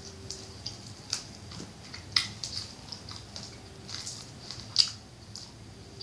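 Close-up crunching and tearing of crispy fried quail, pulled apart by hand and chewed, bones included. Sharp crackles come irregularly about once a second, the loudest about five seconds in.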